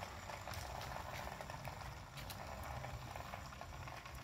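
Small battery-powered DC motor of a homemade drink-can toy aircraft whirring steadily as it spins the rotor, with a low rumble underneath.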